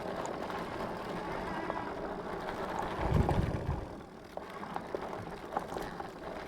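E-bike riding over a dirt trail: steady rolling and wind noise, with a low rumble about three seconds in and scattered small clicks and rattles.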